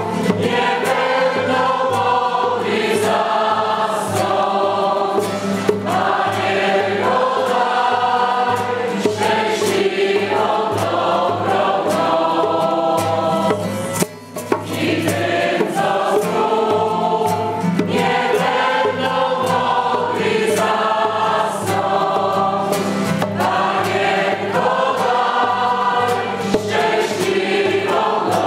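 A group of men and women sing a Polish religious song together to a strummed acoustic guitar. The singing breaks off for a moment about halfway through, then carries on.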